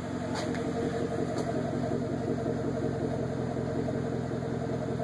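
2011 Chevrolet Camaro SS 6.2-litre V8 idling steadily through a newly fitted Flowmaster aftermarket exhaust, heard from behind the car at the tailpipes.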